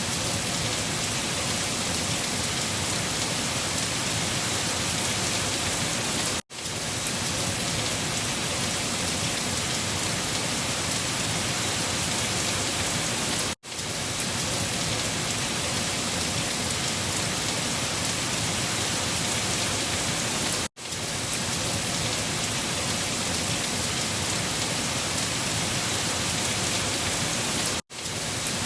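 Steady rain falling, an even hiss of drops with no thunder heard. The sound cuts out very briefly about every seven seconds and comes straight back.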